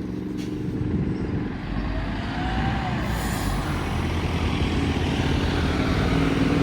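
A bus engine running and growing louder toward the end as the bus draws near, with a short air hiss about three seconds in.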